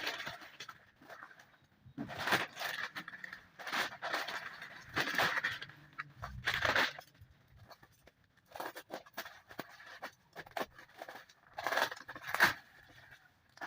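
Packaging being handled and opened: irregular bursts of crinkling, rustling and tearing, with short pauses in between.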